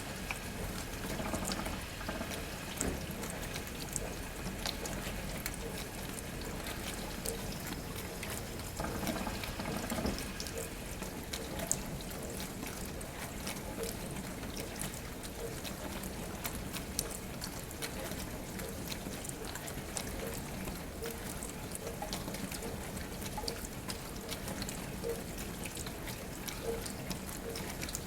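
Dishwasher running a wash cycle: water spraying and splashing inside the tub over a steady pump hum, with a faint regular pulse through the second half and scattered small clicks.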